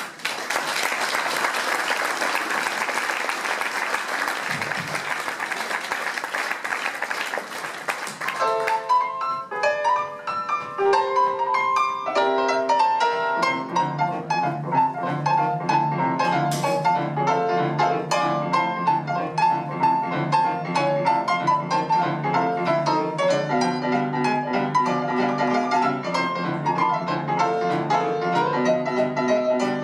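Audience applauding for about eight seconds, then a grand piano starts a blues: a few separate chords, and from about thirteen seconds in a steady rolling bass line under quick right-hand figures.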